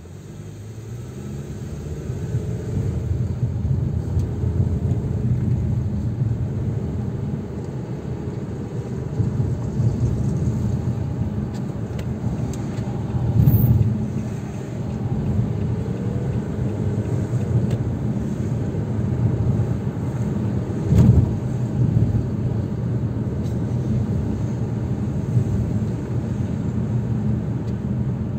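Low rumble of a car driving on city streets. It builds over the first few seconds as the car pulls away from a stop, with two short louder bumps about halfway through and again about three quarters in.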